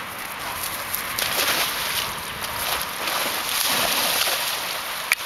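A dog splashing into a pond and thrashing through the water, a steady splashing that gets louder past the middle, with one sharp click near the end.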